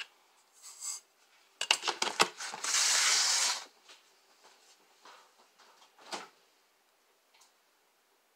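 A few quick knocks of kitchen handling, then about a second of granulated sugar pouring into a glass mixing bowl, with one more knock a few seconds later.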